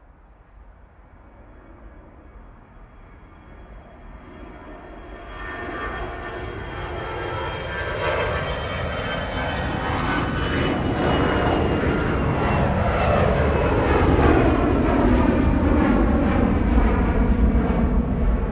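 Airplane taking off, its engine noise swelling steadily from faint to loud, with a high whine that slowly falls in pitch.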